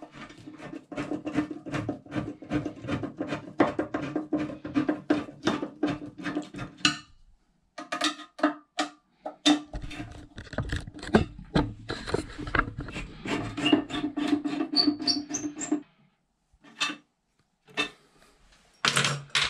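A driver working the screws that fix a ceramic toilet cistern to the wall: quick clicking over a steady hum, in two spells a couple of seconds apart, with a brief rising squeak near the end of the second.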